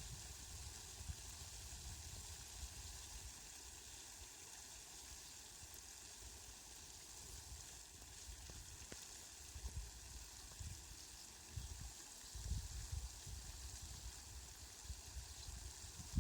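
Faint, steady hiss of falling rain, with low rumbles coming and going underneath.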